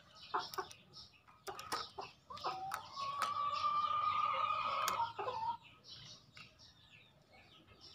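A rooster calling: one long drawn-out call from about two and a half to five and a half seconds in, with short clucking calls and clicks before and after it.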